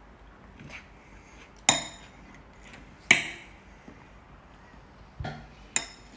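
A metal spoon clinking against dishes as banana pieces are scooped off a plate into a glass bowl. There are four sharp clinks: two loud ones about a second and a half apart, then two quicker, softer ones near the end.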